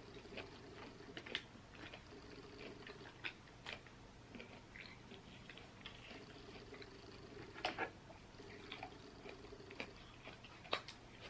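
Faint eating sounds from a seafood boil eaten by hand: scattered soft clicks and smacks of chewing and handling food, the loudest twice in the second half, over a low steady hum.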